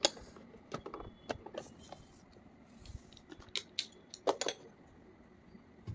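Light clicks and taps of small plastic toy makeup pieces being handled, with a scatter of single sharp knocks over a few seconds.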